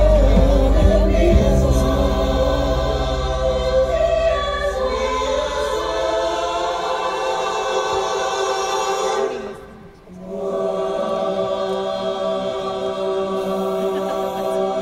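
Choir singing long held chords, played as music through a large hall's sound system. A low bass part fades out about six seconds in, and the singing drops away briefly about ten seconds in, then comes back.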